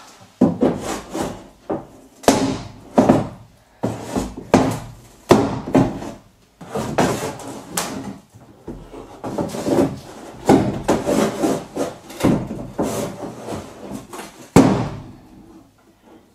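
A metal bar scraping and prying against thin wood-grain wall paneling in a run of irregular strokes, roughly one or two a second.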